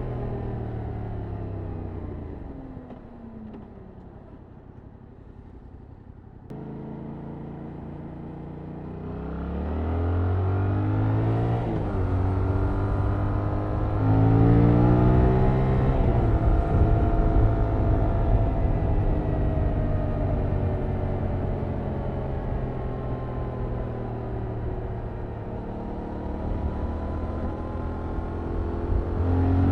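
Stock-exhaust 2021 Yamaha MT-07's 689 cc crossplane parallel-twin engine during a ride. For the first few seconds it slows with falling pitch and then runs quietly at low revs. It picks up sharply and revs up through the gears, with a brief dip at a shift. It then holds a loud, steady cruise whose pitch slowly sinks, before it starts accelerating again near the end. Low rumbling road and wind noise runs underneath.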